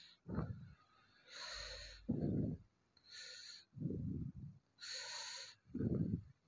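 A person breathing, about four breaths in a row, each a high hiss followed by a lower, duller puff.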